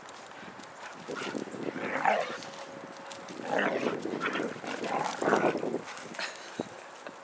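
Siberian huskies play-fighting, an adult with a puppy: rough growls and barks come in several short bursts, the loudest a little past the middle.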